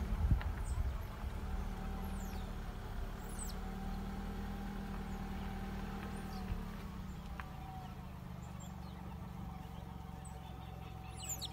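Steady low hum of an idling vehicle engine, with a few brief high, falling chirps about two and three seconds in and again near the end.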